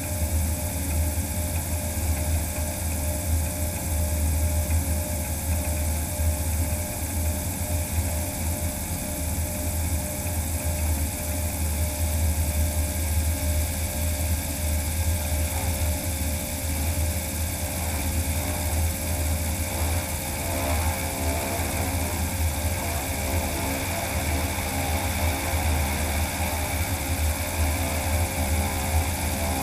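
Magnix magni500 all-electric motor driving the propeller of a DHC-2 Beaver floatplane as it moves on the water: a steady hum with several held tones over a heavy low rumble. A little past halfway, more tones join in as the motor note changes.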